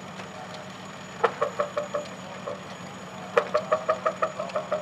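V8-engined Massey Ferguson tractor engine running steadily while pulling a weighted trailer. Twice it breaks into runs of loud, rapid knocking at about six knocks a second: briefly about a second in, then longer from just past the middle.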